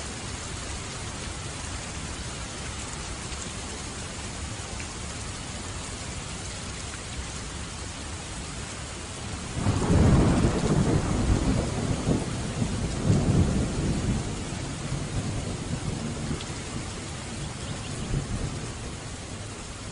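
Steady rain falling, with a loud clap of thunder breaking in about halfway through and rolling on in several low swells before dying away.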